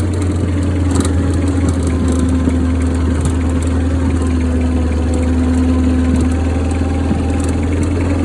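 International Harvester Cub Lo-Boy 154 tractor's small four-cylinder gasoline engine running at a steady speed while the tractor pushes snow with its front plow blade.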